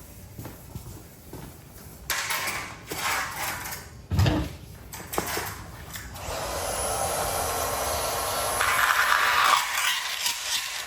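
Scraping and rubbing of tools and garage door hardware as it is worked on, with a sharp knock about four seconds in, then a steady scraping noise lasting about four seconds.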